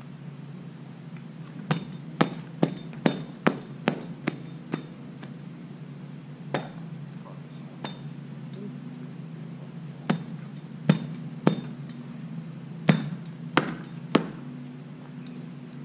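Sharp knocks of concrete stamp mats being tamped into fresh concrete, coming in irregular clusters of a few strikes each, over a steady low hum.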